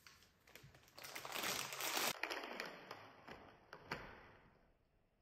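Plastic snack packet crinkling and rustling as it is handled and shaken, loudest for about a second near the middle, followed by a few light clicks and taps as a plastic cup is handled on a plate.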